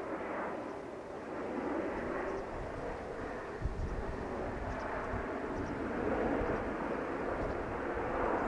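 Jet airliner engines running, heard as a steady rumbling rush of noise that swells and eases slightly, with a brief low thump about halfway through.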